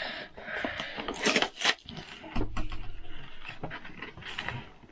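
Hands handling and opening a small cardboard box: a string of cardboard scrapes, clicks and rustles, with a brief low rumble a little over two seconds in.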